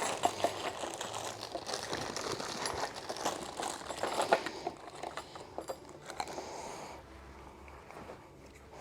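Small plastic connector pieces of a target frame clicking and rattling as they are handled, with some crinkling. The clicks are busiest over the first six seconds or so and thin out towards the end.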